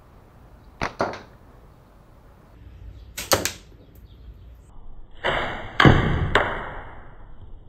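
Slingshot shooting with rubber bands and steel balls: two sharp cracks about a second in, another pair just after three seconds, then the loudest strikes near six seconds with a ringing tail as a ball hits the hanging bottle-cap target.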